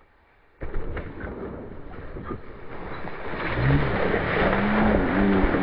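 A mountain bike passing close by on a loose dirt trail: a rushing noise of tyres and air starts suddenly about half a second in and grows louder. In the last couple of seconds a low wavering tone swoops up and down again and again.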